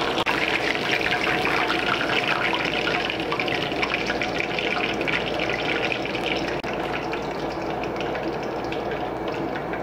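Deep-frying oil sizzling and crackling steadily as battered chicken pieces are lifted out of it in a wire strainer.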